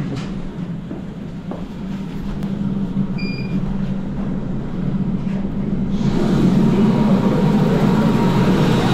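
Helicopter running on the heliport pad, a steady low hum heard through the terminal's glass doors, growing louder and clearer about six seconds in. A short electronic beep about three seconds in.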